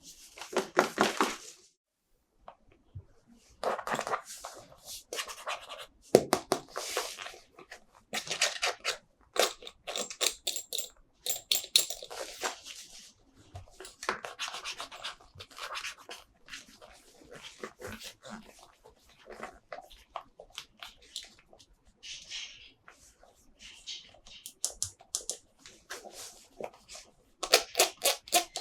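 Plastic toy packaging and figures being handled: irregular bursts of crinkling, rustling and clicking, in clusters with short pauses.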